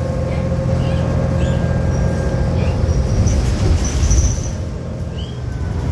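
Interior running noise of a New Flyer XDE60 diesel-hybrid articulated bus (Cummins ISL9 engine, Allison hybrid drive) under way: a steady low drone with a steady whine that falls slightly in pitch, and a few short high squeaks from the body.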